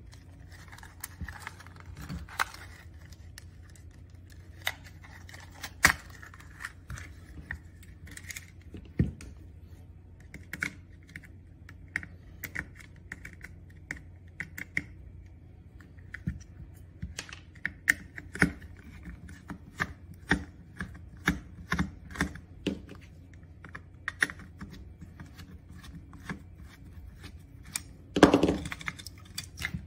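Irregular small clicks and taps of hands and a Phillips screwdriver working on the plastic display housing of an electric scooter's handlebar, as wire connectors are unplugged and the LCD panel is freed. A louder rustling scrape comes near the end, over a faint steady low hum.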